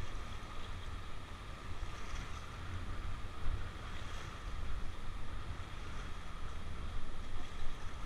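River water rushing around an inflatable raft as the crew paddles forward, with wind rumbling on the microphone.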